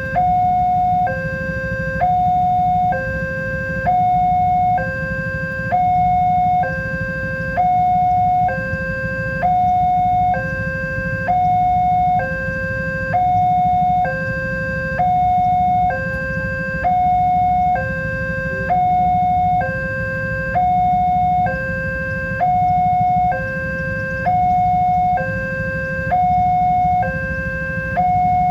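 Level-crossing warning alarm sounding a two-tone hi-lo signal, alternating a higher and a lower tone about once a second, steadily and without break, warning of an approaching train. A steady low rumble runs beneath it.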